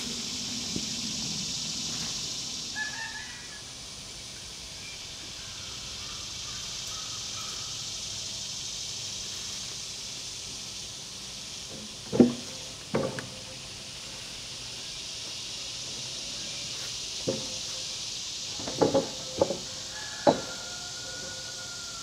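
Heavy sawn wooden cants knocking as they are slid and set down onto a tractor's carrier. There is a loud wooden thud about halfway through and another a second later, then several lighter knocks near the end. A steady high insect buzz runs underneath.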